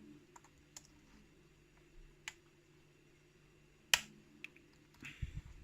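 Lock pick and tension wrench working the pins of a pin-tumbler challenge lock: sparse small metallic clicks, one sharper click about four seconds in, and a few soft knocks near the end.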